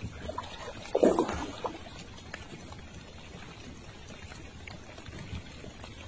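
Water splashing once, loudly, about a second in and dying away within half a second, over a low steady wash of water.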